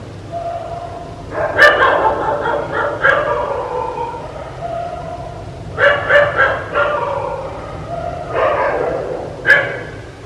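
Dog barking in several clusters of quick barks, with longer drawn-out notes between them.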